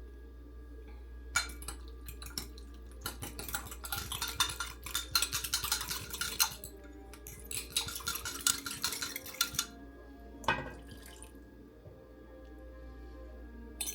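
Metal kitchen utensils clinking and scraping against cookware, in two busy spells of a few seconds each, with a single knock about ten and a half seconds in. A steady low hum runs underneath.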